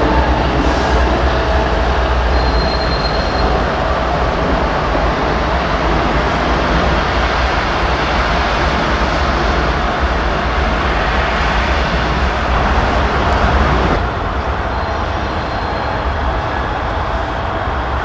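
Train rolling past on the rails: a steady loud rumble and clatter of wheels on track. A brief thin high-pitched squeal comes twice, and the noise steps down suddenly a few seconds before the end.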